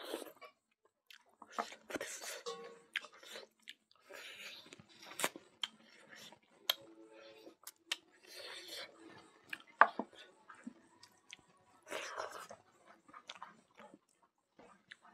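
A person chewing smoked pork and rice, with wet mouth sounds and irregular sharp clicks between short quiet gaps.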